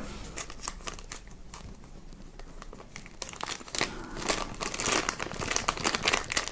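Thin clear plastic bag around a camera battery crinkling as it is handled and pulled open. It is a run of small crackles, sparse at first and busier in the second half.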